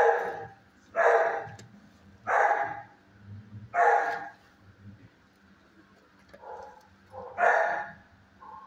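Dogs barking in a shelter kennel block: five loud single barks, four in quick succession about a second apart, then a pause and a fifth, with a couple of fainter barks between.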